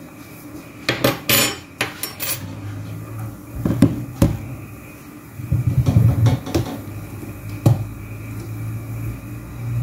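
Metal spoons and dishes clinking and knocking together in a string of separate clatters, some in quick clusters and some single knocks.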